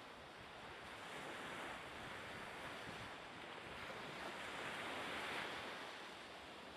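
Storm wind and heavy surf breaking: a steady rushing noise that swells slightly a little after the middle.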